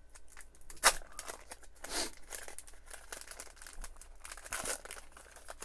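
A trading card pack's wrapper being torn open and crinkled by hand: a series of short rips and crackles, the sharpest about a second in.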